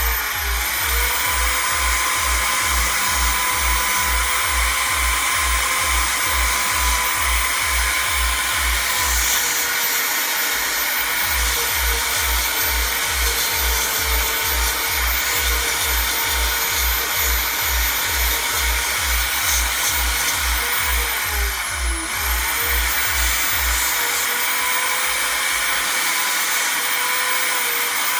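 Small high-speed power sanding tool running with a steady high whine and hiss as it sands a knife handle of coffee-bag material; its pitch dips briefly about two-thirds of the way through. A music beat plays underneath until near the end.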